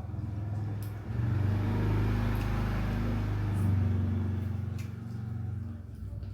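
A motor vehicle passing by, its noise swelling about a second in and fading away by about five seconds, over a steady low hum.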